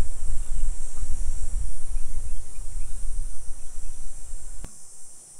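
Wind rumbling on the microphone, uneven in strength, over a steady high buzz of insects; the rumble cuts off suddenly with a click near the end.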